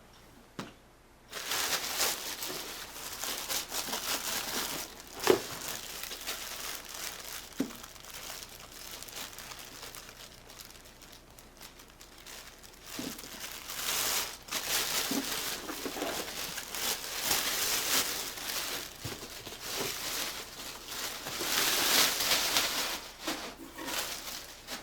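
Packaging being handled and unwrapped from a new coffee maker, crinkling and rustling almost continuously, with a few sharp knocks. It starts about a second in.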